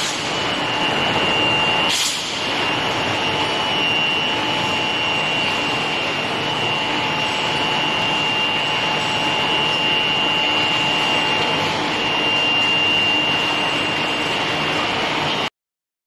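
Steel bar induction forging furnace line running: a steady machine drone with a thin, steady high whine over it. One sharp clack about two seconds in, and the sound cuts off suddenly near the end.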